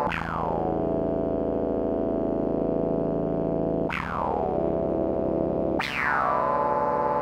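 Slowed-down electronic music: sustained synthesizer chords, each beginning with a bright attack that darkens as it fades. A new chord comes in about four seconds in and again near six seconds.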